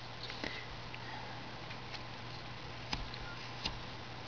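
Carving knife taking small cuts in wood, a few faint sharp clicks about a second apart over a steady low hum.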